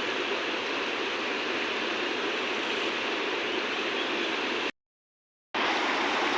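River water rushing and flowing steadily. The sound cuts out completely for about a second near the end, then resumes.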